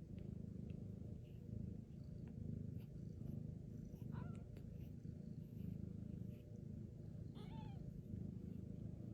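Cat purring steadily and quietly, with two short, high mews, one about four seconds in and one near the end.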